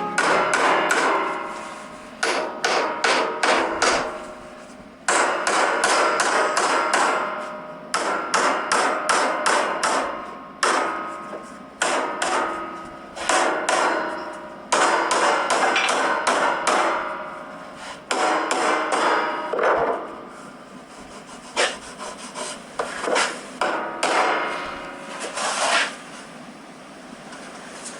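Hammer striking and crushing wooden pencils: quick runs of sharp blows, several a second, broken by short pauses, some blows ringing briefly.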